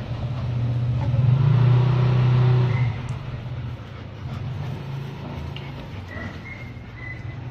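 A motor vehicle's engine running close by, loud for about three seconds, then fading to a lower steady hum.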